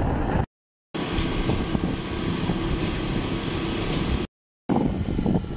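Wind rushing over the microphone and a motorbike engine running steadily while riding. The sound cuts out to dead silence twice, briefly, where the footage is spliced.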